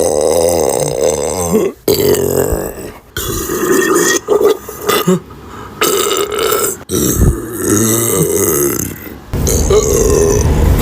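A woman belching: several long, loud belches one after another, each lasting one to two seconds.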